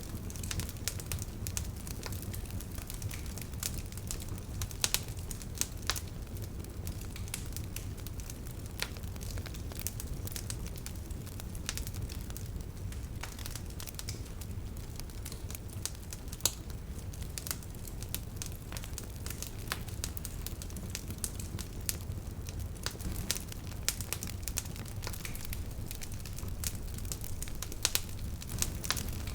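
Bonfire crackling, with irregular sharp pops and snaps from the burning wood over a steady low rumble of the flames.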